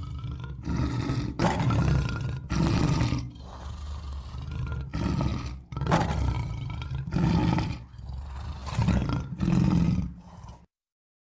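Lion roaring: a series of deep roars and grunts about a second apart, cut off suddenly near the end.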